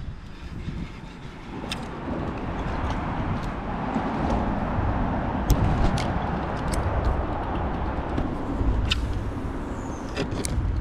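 Road traffic crossing the bridge overhead: a rush of tyre noise and low rumble that swells about two seconds in and holds for the rest of the time. A few sharp clicks sound over it.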